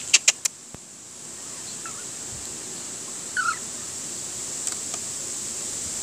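Puppy giving two faint, short whimpers, about two and three and a half seconds in, after a few sharp clicks at the start.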